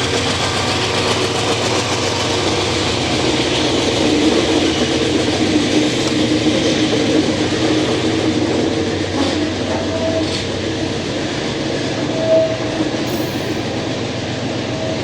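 Empty diesel freight train climbing a grade: a steady rumble of locomotive engines and wagons rolling over the rails, with a couple of short squealing tones in the second half.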